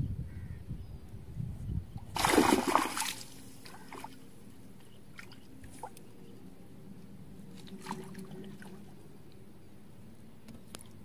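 A fish thrashing at the water's edge: one loud splash and slosh about two seconds in, lasting about a second.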